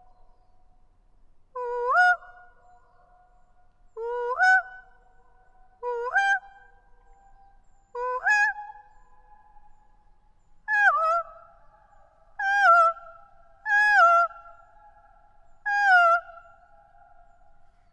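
A woman gives eight high-pitched vocal hoots, about one every two seconds. The first few swoop upward in pitch and the later ones swoop downward. Each call is followed by a fainter lingering tail of the same pitch, the echo off the rock face.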